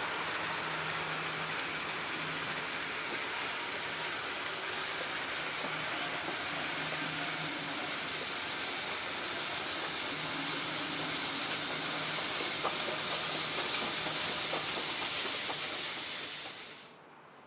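A Victorian Railways heritage steam train passing at speed: the carriages rattle along the rails, then the steam locomotive at the rear goes by with a loud steam hiss, the sound growing louder. It cuts off suddenly near the end.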